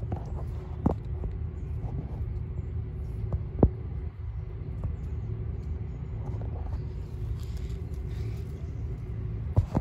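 Steady low motor rumble with a faint steady hum, and two sharp clicks about one second and three and a half seconds in.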